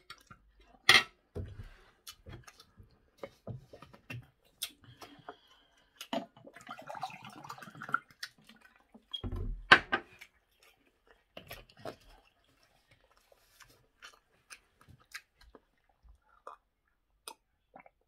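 Close-up eating sounds: a fork clicking and scraping on a plate of rice and chicken, with chewing and mouth sounds between the clicks. A single loud thump comes about ten seconds in.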